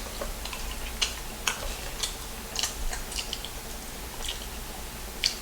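Close-miked chewing of food in a mukbang: irregular wet, sharp mouth clicks and smacks, roughly one every half second.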